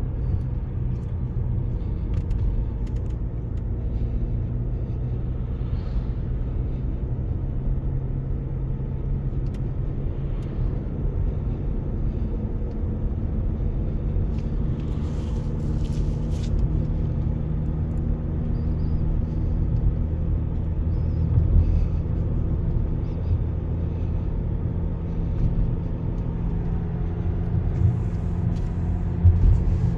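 Volkswagen Passat B7 driving along: a steady engine hum with low road rumble, its pitch shifting gently as the engine speed changes.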